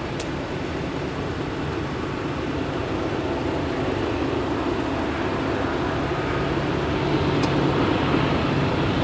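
Diesel freight locomotives approaching unseen: a steady low engine drone that grows slowly louder, over a constant hiss of rain. Two brief sharp ticks, one just after the start and one near the end.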